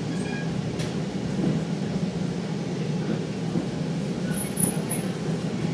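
Steady low rumble inside a Metra commuter train car as the train rolls slowly into the station, coming to a stop, with a faint brief high squeak about four and a half seconds in.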